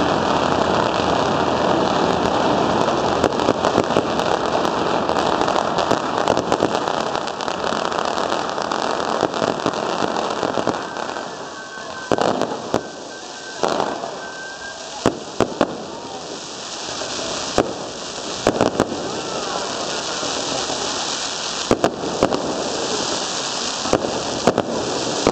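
Two long strings of firecrackers going off in a rapid, continuous crackle that thins out after about ten seconds, picks up again, and ends with several separate louder bangs.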